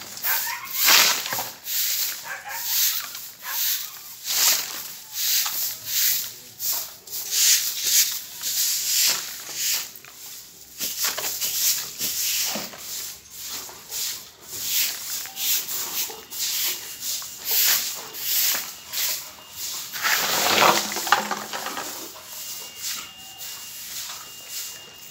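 Stiff bundle broom sweeping a concrete street in quick repeated scraping strokes, about one to two a second, with a brief louder sound about twenty seconds in.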